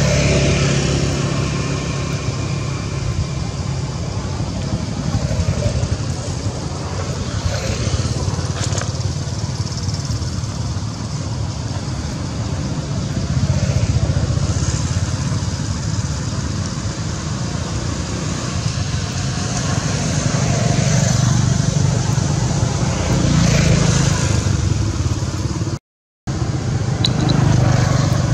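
Steady low rumble of passing motor traffic, swelling and fading a few times, with a brief drop to silence near the end.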